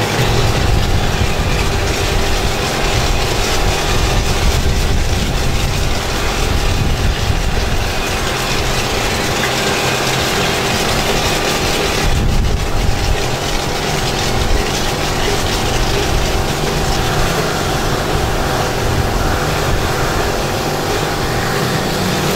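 Car wash pressure-washer pump running steadily with a constant hum, with water spraying from a hose onto a minivan's body.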